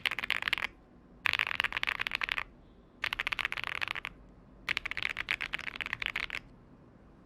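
Zoom TKL mechanical keyboard with Akko Cream Blue tactile switches on an aluminium plate being typed on fast, in four bursts of rapid key clicks of about a second each with short pauses between.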